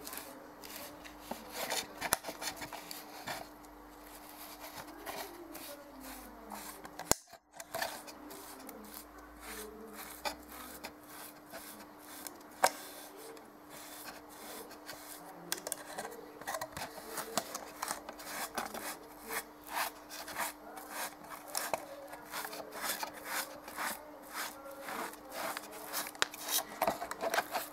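Acrylic paint being spread over a plastic bottle by hand: repeated rubbing and scraping strokes with small clicks as the bottle is handled. The strokes come faster and closer together in the second half, over a faint steady hum.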